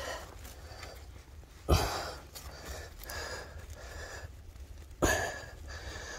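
Two heavy blows of a hand tool breaking up hard rock and packed stone, about three seconds apart, each dying away quickly. Hard breathing from the digger comes with the effort.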